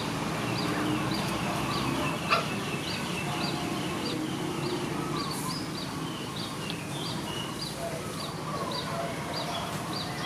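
Animal calls: a steady run of short, high chirps, about two a second, over fainter lower drawn-out calls, with one sharp knock about two seconds in.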